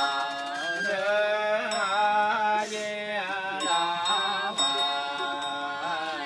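Buddhist funeral chant sung in long held notes that waver and slide from pitch to pitch.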